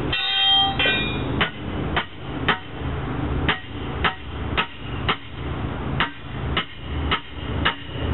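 Hammer blows on a steel tire iron, driving it into the pry slot of a split-ring rim to pop the lock ring off. About a dozen sharp metal-on-metal strikes, roughly two a second with short pauses, the first one ringing.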